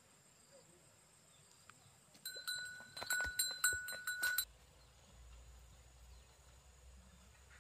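A small metal bell jangling rapidly, with several quick strikes of the same ringing pitch over about two seconds, starting about two seconds in and stopping abruptly.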